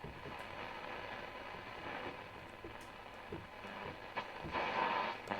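Graetz Comedia 616 tube radio's loudspeaker giving static and hiss while tuned between stations, with scattered faint crackles and a swell of noise near the end.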